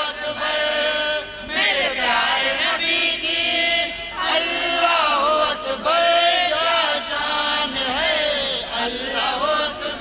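A man chanting a naat, an Urdu devotional poem, unaccompanied, through a microphone and loudspeakers, in long wavering melodic phrases with short breaks between them.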